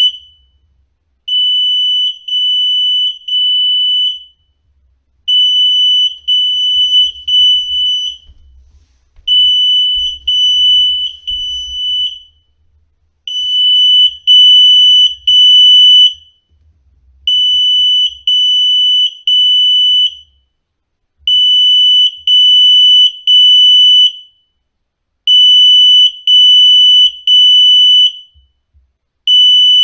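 Residential smoke-type fire alarm sounding in full alarm after a test activation: a loud, high-pitched beep in groups of three, each group lasting about three seconds and repeating about every four seconds.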